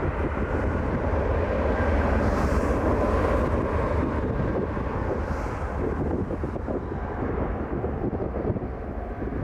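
Wind buffeting the microphone over the steady rumble of a jet airliner's engines.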